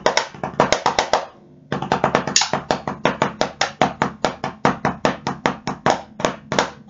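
Pair of drumsticks striking a drum practice pad in a quick, even stream of strokes, about five or six a second, breaking off briefly about a second in.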